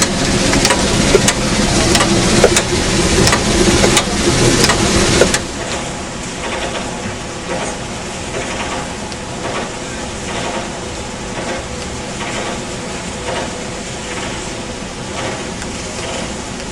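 Railway train running, with regular sharp clacks about twice a second, then an abrupt drop to a quieter steady rumble with faint ticks about five seconds in.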